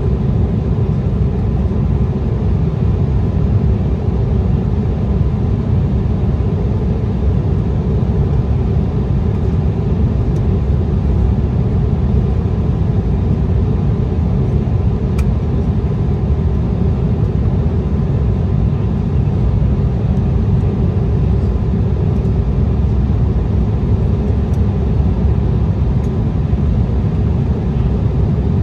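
Steady low rumble of engine and airflow noise inside the cabin of an Embraer ERJ-175 jet on approach, heard from a window seat over the wing, with a faint steady tone above it.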